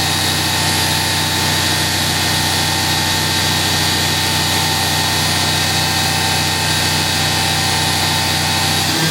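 Fadal VMC 4525HT machining center's CAT 40 spindle running steadily at 8,000 RPM: an even hum and whine of several constant tones.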